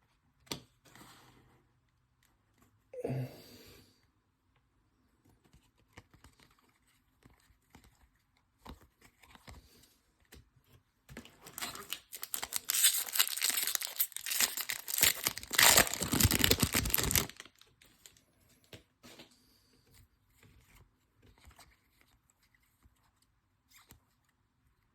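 Foil trading-card pack wrapper being torn open and crinkled, loudest for about six seconds in the middle, with a few light rustles and clicks of handling before and after.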